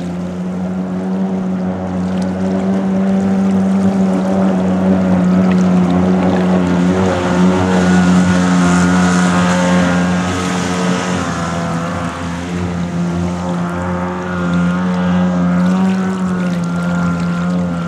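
Mini jet boat's Kawasaki 550 two-stroke jet ski engine running at a steady high throttle as the boat skims past. It grows louder to a peak about halfway through as it comes closest, with a hiss of water spray, then eases off as it pulls away.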